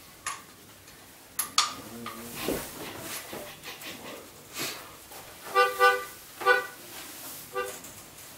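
A melodica tooting a handful of short, steady reed notes a little past the middle, with a fainter one near the end. Before that come a few scattered clicks and knocks.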